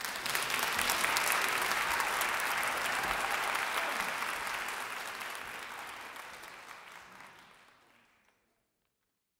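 Audience applauding: dense clapping that starts abruptly at the end of a choral piece, then fades away from about halfway through and is gone near the end.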